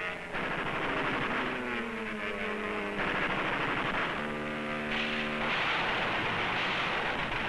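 Rapid machine-gun fire, with an aircraft engine's whine falling in pitch between one and three seconds in, then a steady droning tone for about a second midway. The sound is thin and muffled, as on an old film soundtrack.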